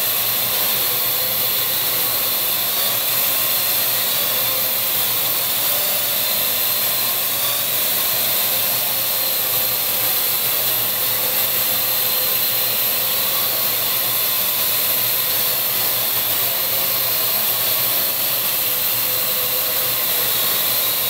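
Parrot AR.Drone quadrotor's four electric rotors running steadily in flight, giving an even whirring hum with a high whine that holds constant throughout.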